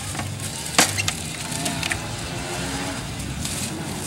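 Bamboo pole rammed down into a clogged irrigation culvert, giving one sharp wooden knock about a second in, followed by a couple of lighter ticks.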